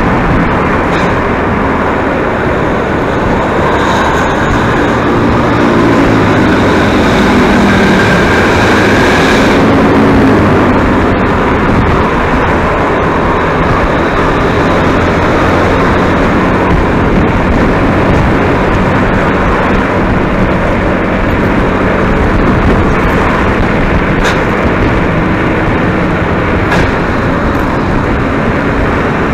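Tour bus driving at speed: loud, steady engine, tyre and wind rush. For several seconds from about four seconds in, a few pitched tones step up and down over it.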